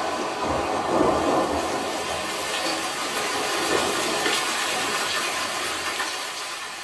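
Rushing, rain-like noise with faint music beneath it, fading out steadily as the recorded song ends.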